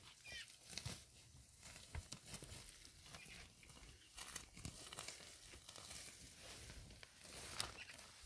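Faint, irregular rustling and crinkling with scattered small clicks.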